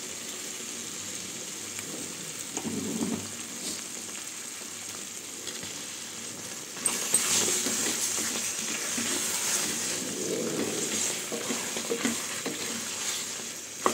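Hot, thick paneer gravy sizzling in a kadai, with a wooden spatula stirring and scraping through it. The sizzle gets louder about halfway through, once the stirring starts.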